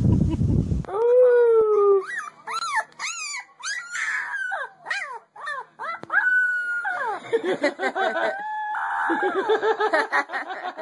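Husky puppies howling: a long series of high, wavering howls and yips, each rising and falling in pitch. A brief low rumble sounds at the very start.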